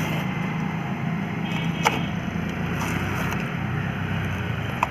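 Cardboard phone packaging being handled and worked open by hand, with a sharp snap about two seconds in and another near the end, over a steady background rumble.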